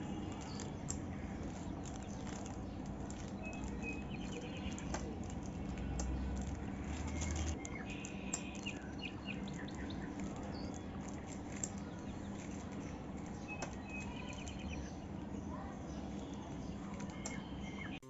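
Quiet room background: a low steady hum with a few faint high chirps and occasional soft clicks.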